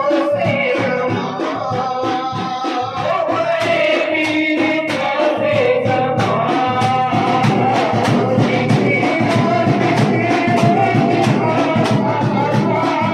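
Men singing a devotional chant into microphones, amplified, over a steady percussion beat.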